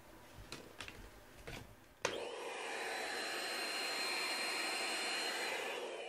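A few light clicks, then a vacuum cleaner switches on with a click about two seconds in and runs steadily with a high whine, winding down near the end as it is switched off.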